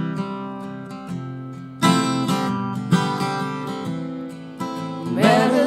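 Acoustic guitar strummed in a slow folk/alt-country song, a chord struck every second or so and left to ring. Near the end a voice comes in on a wavering sung note.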